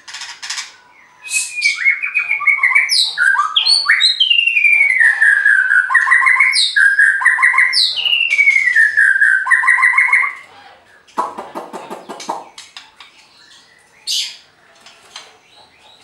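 White-rumped shama singing a loud, varied song of whistled phrases, with sliding notes and quick runs of repeated notes, which breaks off after about nine seconds. A short, low rattling sound follows about a second later, then a single brief call.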